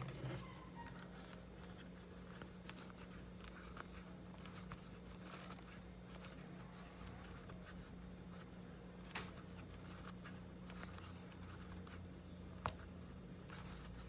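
Faint rustling and scattered light clicks of a crochet hook working cotton yarn in single crochet stitches, over a steady low hum. Two sharper clicks come in the second half, the later one the loudest.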